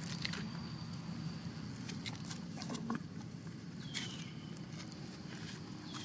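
Outdoor ambience with scattered clicks and rustles, and a brief high squeak that falls in pitch about four seconds in and again near the end, from a baby macaque held by its mother, a sign of distress.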